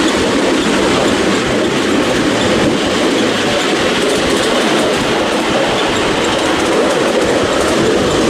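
Ride-on miniature railway train running along the track, heard from a passenger car: a steady noise of wheels on rails with light, fast clicking throughout.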